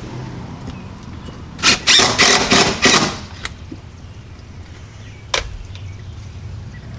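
A quick run of four or five loud, short scraping and knocking noises about two seconds in, then a single sharp click, from hand work fastening a mounting block or fixture to the wall.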